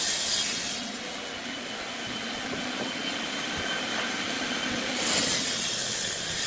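Wood lathe turning, a cutting tool scraping the spinning wood; the cutting noise is louder at the start and again from about five seconds in.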